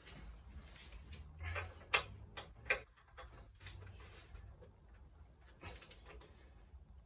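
Wrench work on the subframe bolts: a ratchet ticking in short runs with two sharp metal clicks about two and almost three seconds in, as the bolts are tightened up to torque.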